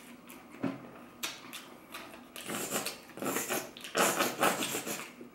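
Close-miked eating sounds: chewing with a few sharp mouth clicks, then, from about halfway in, runs of wet crackly squelching as a plastic squeeze bottle of mustard is squeezed onto a piece of corn dog.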